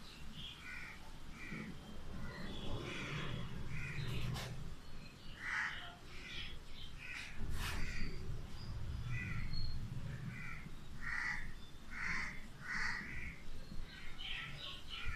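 Crows cawing again and again, many short calls a fraction of a second each, over a steady low rumble.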